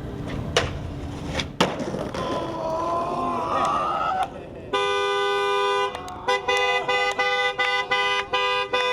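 Two sharp knocks, then a car horn honking: one long blast starting about halfway in, followed by a run of quick short honks.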